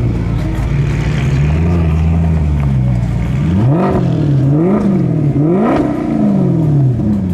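McLaren 570S twin-turbo V8 with an AED Motors exhaust, idling and then revved three times in quick succession about four, five and six seconds in. The pitch falls back to idle near the end.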